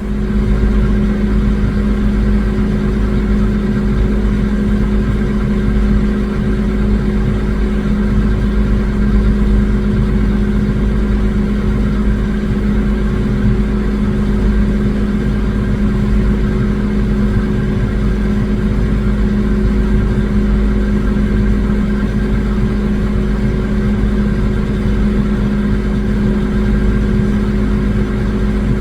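Self-propelled swather running steadily at working speed, a constant engine drone with a steady low hum and deep rumble.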